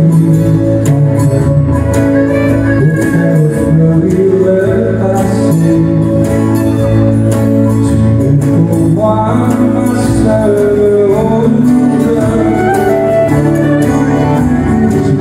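Live country music played on several acoustic guitars strummed together in a steady rhythm.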